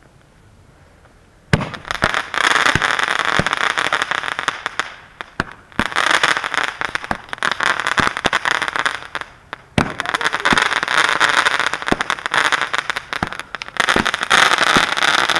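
Consumer firework going off, crackling and hissing: after a quiet second and a half a sharp crack starts the first of three long spells of dense crackling, each a few seconds long, with sharp cracks through them and short lulls between.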